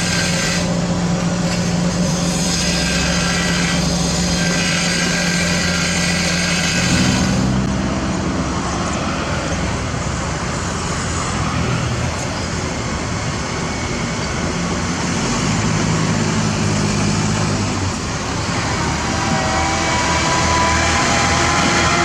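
Heavy diesel engines of construction machinery running at a road works, their pitch shifting as the machines change load, over a steady haze of engine and road noise.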